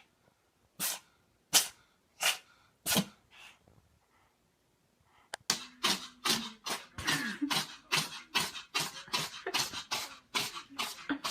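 A cat sneezing four times in quick succession, sharp and separate, each about 0.7 s apart. After a short pause, a faster run of short sharp bursts follows, about three a second.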